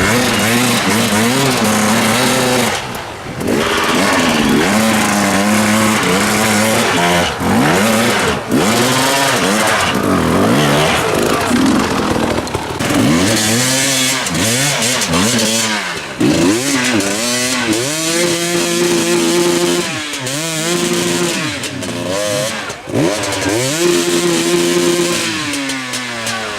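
Enduro motorcycle engine revving hard and unevenly, the pitch rising and dropping again and again as the throttle is blipped, with a couple of longer held revs in the second half.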